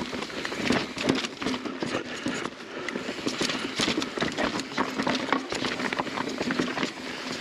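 Mountain bike rattling and clattering down a rocky trail, its tyres knocking over rocks and the bike's parts clattering in a rapid, uneven stream of clicks and knocks.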